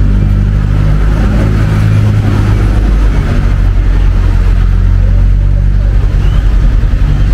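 City street traffic: vehicle engines running steadily close by, a continuous low hum.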